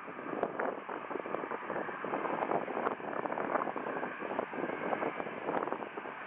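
Boeing 737-800 CFM56 jet engines heard from a distance as the airliner moves along the runway, with gusts of wind buffeting the microphone.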